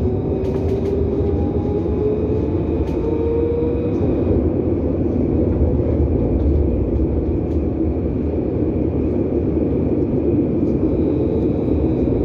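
Electric tram in motion, heard from inside the car: a steady low rumble of the wheels on the rails, with the traction motors' whine rising in pitch over the first few seconds as it gathers speed.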